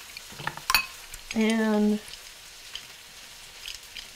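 A metal spoon scraping pressed garlic off a garlic press into a ceramic bowl, with two sharp metallic clicks in the first second and a few faint ticks later over a low steady hiss. A drawn-out spoken "and" comes between them.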